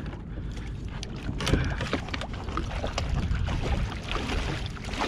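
A hooked brown trout thrashing and splashing at the surface right beside a kayak, with irregular splashes and water sloshing against the hull.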